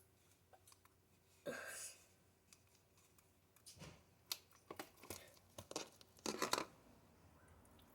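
Faint handling noises of slime and its container: a short rustle about one and a half seconds in, then a run of crackling and tearing sounds from about four seconds, loudest shortly before the end.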